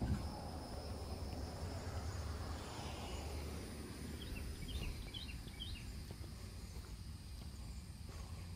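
Outdoor wind rumbling steadily on a phone microphone, with a brief bump right at the start and a short run of high chirps about halfway through.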